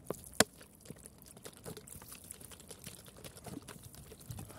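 Water sprinkled from a plastic bottle onto snails and dry grass: faint spattering and small ticks of drops, with one sharp click about half a second in.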